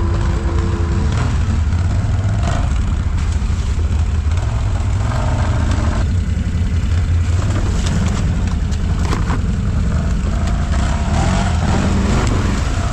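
Can-Am Renegade 1000 XMR ATV's Rotax V-twin engine running steadily at low revs, picked up close on the machine, with scattered knocks and rattles.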